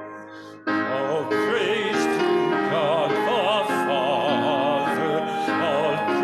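Church music: singing with strong vibrato over sustained accompaniment, with a brief break in the music just under a second in.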